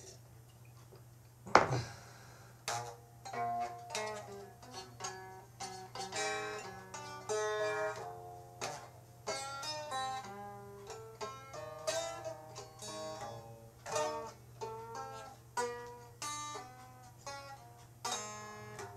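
A plucked string instrument playing a melody of single notes, each decaying after it is plucked; it starts with one sharp, loud strike about a second and a half in. A steady low hum runs underneath.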